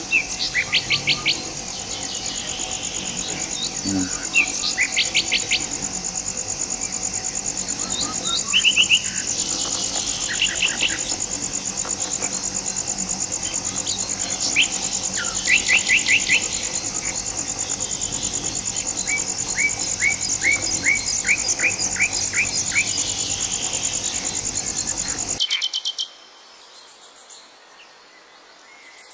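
Forest ambience: a steady, high-pitched, rapidly pulsing insect drone with bursts of short, quickly repeated bird calls over it. About 25 seconds in it cuts off abruptly, leaving a much quieter background.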